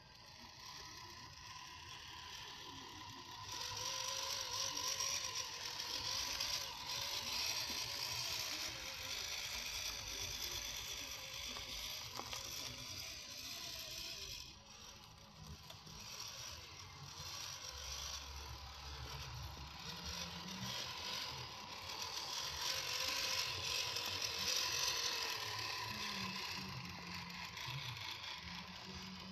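Electric motor and geared drivetrain of a 1/10-scale RC Jeep Rubicon crawler whirring as it drives, with a faint steady whine. It grows louder about three and a half seconds in, then rises and falls as it goes.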